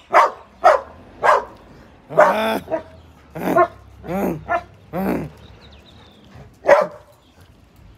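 Yellow Labrador retriever barking: three quick barks, then a few longer, drawn-out barks, and one last sharp bark near the end.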